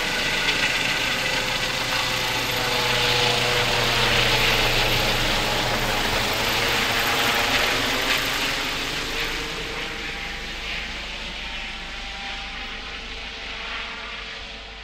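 Airbus Helicopters H135 (EC 135 P2) helicopter passing overhead: turbine whine and rotor noise, loudest about four to eight seconds in, then fading steadily as it flies away.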